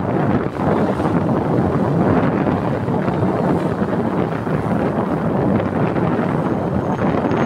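Steady wind rushing over the microphone of a moving vehicle, mixed with road and engine noise.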